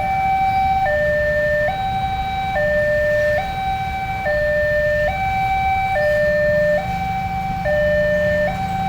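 A two-tone siren, alternating steadily between a high and a low note, each held just under a second, over a low rumble.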